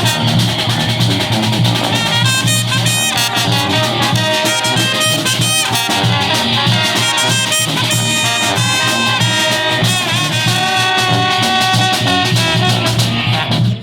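Brass band playing live: horns holding and moving between notes over percussion, in an upbeat Latin-tinged groove.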